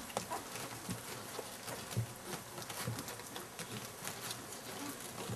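Golden retriever mother licking milk off a newborn puppy's face: a run of small, irregular wet clicks and smacks.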